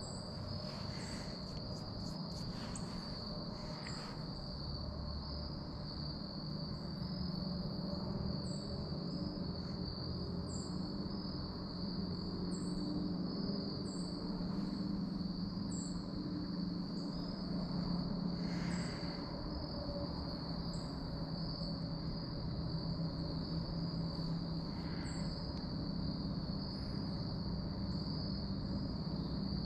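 Insects trilling in a steady, unbroken high drone, with short high chirps every second or two over a low steady rumble. There are a few soft rustles, mostly in the first few seconds.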